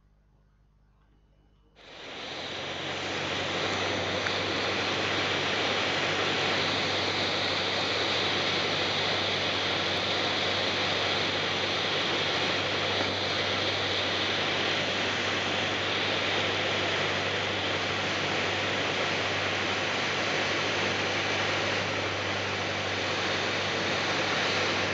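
Cabin noise of a Piper PA-28 single-engine light aircraft on approach: the piston engine and propeller running steadily with a low hum under a loud rush of air. It cuts in suddenly about two seconds in, after near silence.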